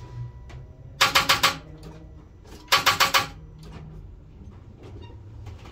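Starter solenoid of a 1996 Impala SS chattering in two short bursts of rapid clicks, about a second and a half apart, as the key is turned. The battery is too dead to crank the engine even with the small jumper connected.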